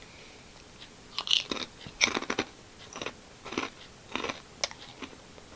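Crunching bites and chewing of a crisp Japanese shrimp rice cracker (ebi senbei), a string of sharp irregular crunches starting about a second in.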